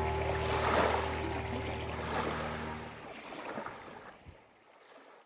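Waves and water on the open bay with a steady low hum. The hum stops about three seconds in, and the water sound fades out to silence.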